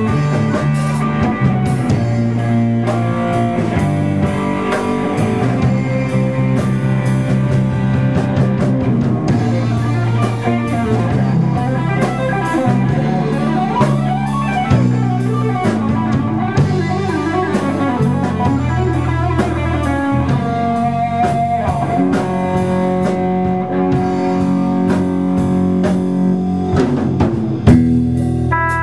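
Blues-rock trio playing live with no vocals: an electric guitar plays lead lines with bent notes and held tones over electric bass and a drum kit.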